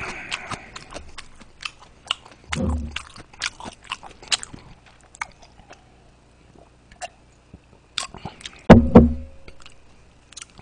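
Close-miked chewing of hand-made meat dumplings: a run of wet mouth clicks and smacks. A loud, dull thud comes near the end.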